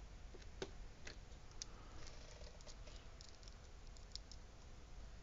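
Faint clicks and ticks of fingernails picking at the tape on a cardboard figure box: a few sharper clicks in the first second and a half, then lighter scattered ticks.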